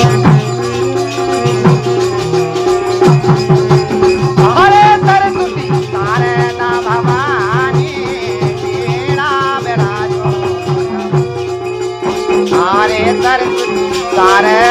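Instrumental interlude of an Indian folk devotional song (devi geet): a steady drone note under repeating low beats, with a lead melody of wavering, bending notes.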